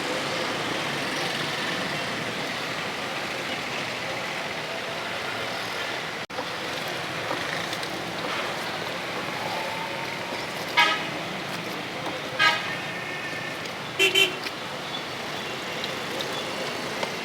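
Steady road traffic noise with short vehicle horn toots, four quick beeps between about two-thirds and four-fifths of the way through.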